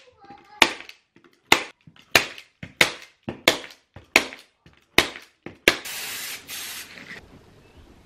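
Hand-squeezed staple gun firing staples through quilted fabric into a wooden board, eight sharp snaps about two-thirds of a second apart. Near the end there is a second or so of rustling.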